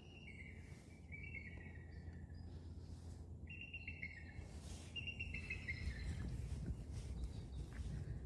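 A songbird singing repeated phrases of quick notes that slide downward, five phrases or so with short gaps between them, over a steady low background rumble.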